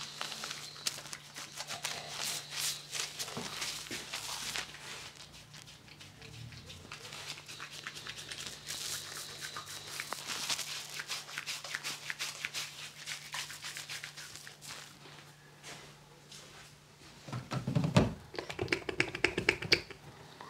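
Hands rubbing and pressing a thick soap lather over a man's face, the foam making a fine crackling, squishing sound. Near the end, a few seconds of louder knocks and rustling.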